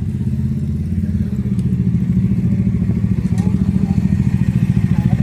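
Motorcycle engine idling steadily with a fast, even exhaust pulse, growing a little louder about a second in.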